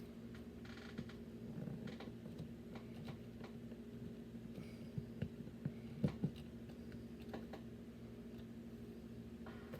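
Small plastic clicks and rattles of Lego Technic parts being handled and pressed together, with a cluster of sharper clicks about five to six seconds in, over a steady low hum.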